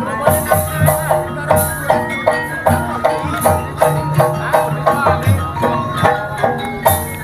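Ebeg gamelan (bendhe) music: struck metal gongs and metallophones ringing in a quick repeating pattern of about four notes a second, over a drum and jingling metal percussion.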